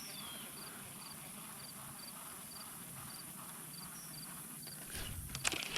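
Cricket chirping steadily, about two short three-pulse chirps a second, with a few faint knocks near the end.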